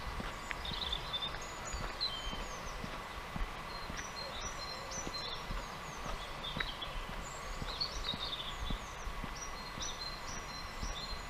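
Small songbirds chirping and calling over and over, with short quick notes, some sliding down in pitch. Underneath, low soft thuds of footsteps walking on a tarmac lane.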